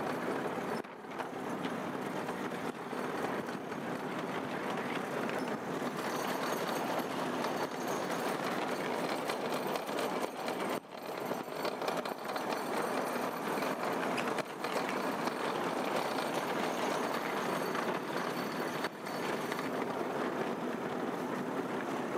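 A 12-inch-gauge ride-on train running along its track: a steady rolling rumble of wheels on rail, broken by a few brief dips.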